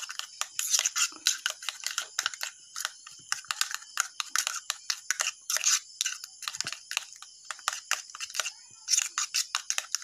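Metal spoon beating eggs in a steel tumbler, clinking rapidly against its sides, with a brief pause near the end.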